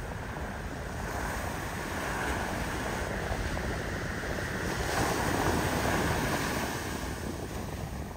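Ocean surf breaking on the beach, swelling to its loudest about five seconds in, with wind on the microphone.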